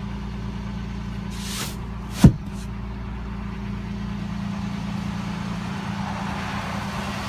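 Toyota Tacoma pickup's engine idling steadily, with one sharp thump a little over two seconds in.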